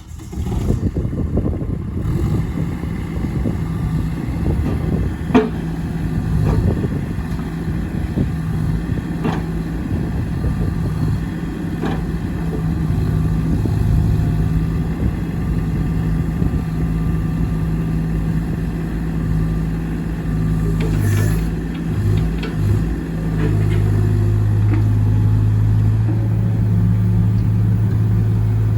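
JCB 8030 mini excavator's diesel engine running, with a few sharp clanks in the first half. Near the end the engine note drops to a lower, steadier tone.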